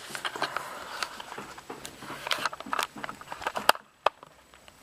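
Handling noise: scattered clicks, taps and light rustling as things are moved about on a tabletop, with a couple of sharper taps about three and a half to four seconds in.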